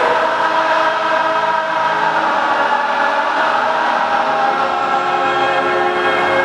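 A large stand of football supporters singing a chant together in unison, a massed choir of voices with no break.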